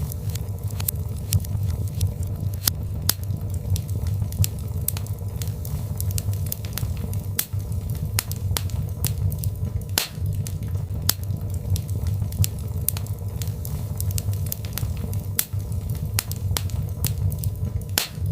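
Birchwood fire crackling in a fireplace: frequent sharp, irregular pops and snaps over a steady low rumble of the flames.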